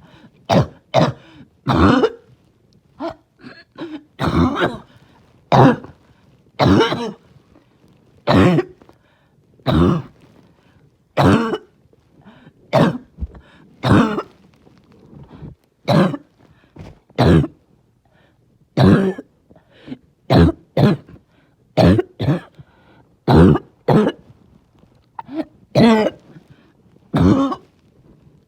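A person's harsh, barking cough in a long run of short, separate coughs, about one a second and some in quick pairs.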